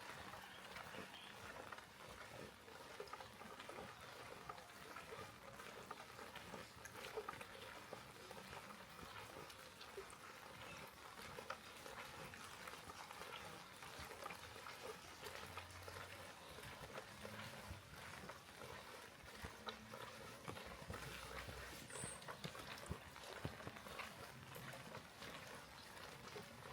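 Light rain falling, faint: an even hiss scattered with many small drip ticks.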